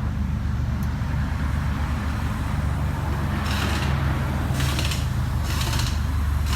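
The V8 engine of a 2008 BMW 750Li, heard through a custom dual 2.5-inch exhaust with SLP Loudmouth resonators, running steadily at low revs with a deep exhaust note. From about halfway in, short bursts of high hiss come roughly once a second.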